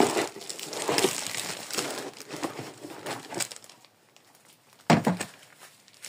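Plastic crinkling and rustling as it is handled, stopping a little past halfway, then one sharp knock near the end.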